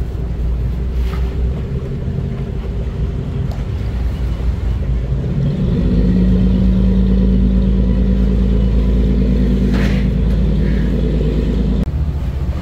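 City street traffic rumble with a motor vehicle's engine droning steadily close by; the engine tone rises in about five seconds in and cuts off abruptly near the end.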